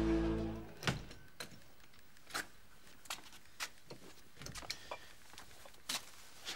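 A held music chord fades out within the first second. Then come scattered soft knocks and clicks of a door and footsteps as someone walks across the room.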